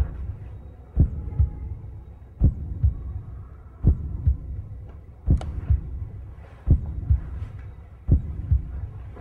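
Slow heartbeat-like thumping: a strong low thump followed by two softer ones, repeating evenly about every one and a half seconds, in the manner of a suspense heartbeat sound effect.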